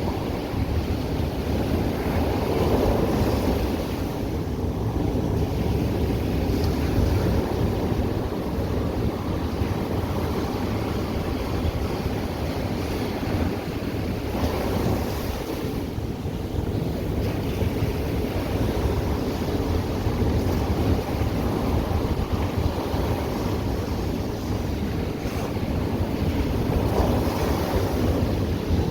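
Ocean surf washing ashore in a continuous wash with gentle surges as waves break, and wind buffeting the microphone.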